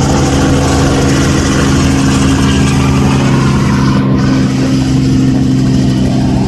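Helicopter engine and rotor running with a loud, steady drone.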